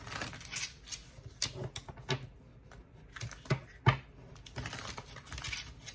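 Tarot cards being shuffled and handled by hand: an irregular patter of light clicks and taps, with a sharper snap or two a little under four seconds in.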